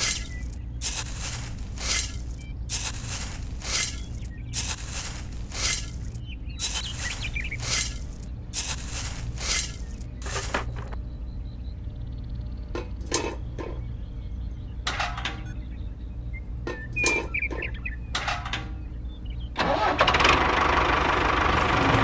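A tiny shovel scrapes and pours dry sand and cement into small toy buckets, giving short rushing scrapes about once a second, then fewer, lighter scrapes and taps, over a steady low hum. Near the end a loud continuous sound starts.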